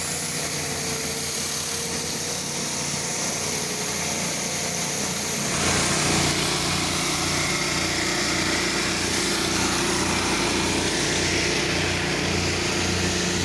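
Pressure washer's small gasoline engine running steadily, with a steady hiss over it. About five and a half seconds in the sound gets fuller and lower, with an even pulsing in the bass.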